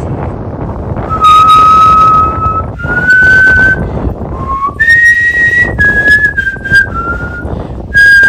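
A high, clear whistled melody of held notes that step up and down in pitch, with short breaks between phrases, over a steady low rushing background.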